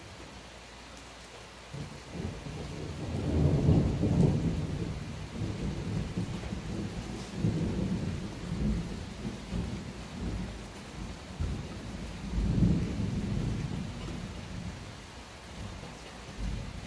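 Thunder rolling: a long low rumble that starts about two seconds in, swells strongest around four seconds, swells again around twelve seconds and then fades away. A steady hiss of rain runs underneath.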